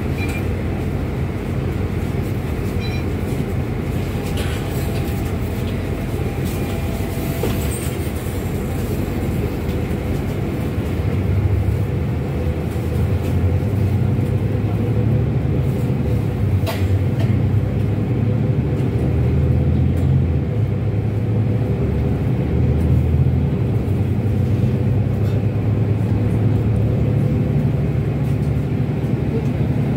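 Cabin noise inside a moving road vehicle: a steady low engine and road rumble, getting heavier from about eleven seconds in.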